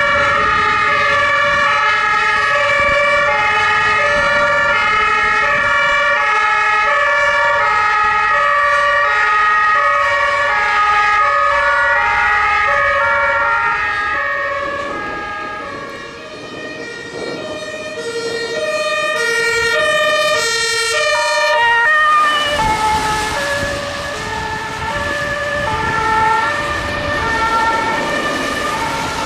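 German two-tone emergency sirens on fire engines, several sounding at once and out of step, each stepping steadily between a high and a low note. About two-thirds in, a nearer two-tone siren joins with engine and tyre noise on the wet road as a rescue ambulance drives past.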